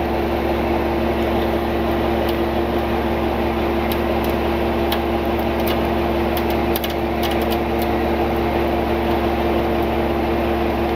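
Tow truck engine running steadily, driving its winch, with a steady whine from the winch drive while it hauls in cable under load. Small scattered ticks sound over it.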